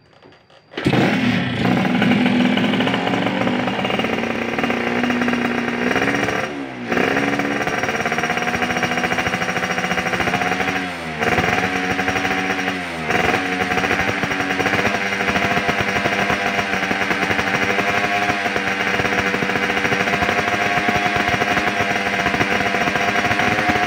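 Suzuki Satria 120 two-stroke single-cylinder engine, fitted with an aftermarket racing exhaust, starting about a second in and running with a fast, buzzing two-stroke note. Its engine speed dips briefly and picks back up three times, then it settles into a steady idle.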